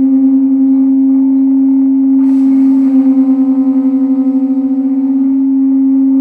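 A conch shell and an animal horn blown together, each holding one long low note. About two seconds in, a breathy second note slightly below the first joins, and the two beat against each other in a wavering pulse until about five seconds in.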